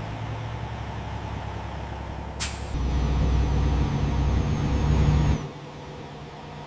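Heavy vehicle engine running steadily, with a short sharp hiss of air about two and a half seconds in. After the hiss the engine runs louder, then drops back to a quieter hum a little after five seconds.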